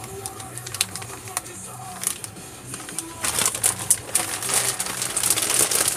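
Clear plastic parts bags crinkling and rustling as they are handled, much busier from about three seconds in, over background music.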